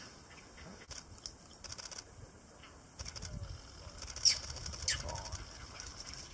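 Birds calling: a few short, sharp, high calls that each drop quickly in pitch, the loudest in the second half, over a low rumble.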